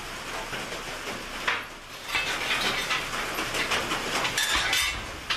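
Homemade steel welding-table cart rolling on its casters across the shop floor, rattling and clattering, with a knock about a second and a half in.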